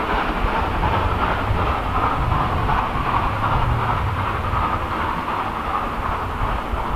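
Steam train of SDJR 7F 2-8-0 No. 53808, a steady rumbling rush of its running with no distinct beats.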